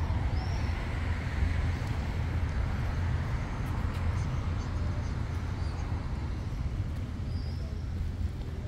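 Steady low rumble of city traffic, with two brief high chirps, one about half a second in and one near the end.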